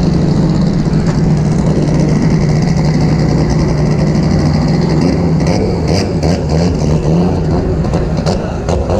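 BMW E30's M20 straight-six engine running at low revs while the car rolls slowly, a loud steady drone. A few sharp clicks come in the second half.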